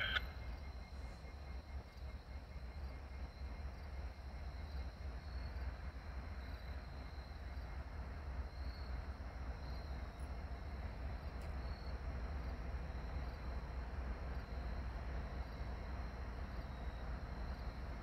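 Low, steady rumble of distant diesel locomotives running light, slowly growing louder as they approach.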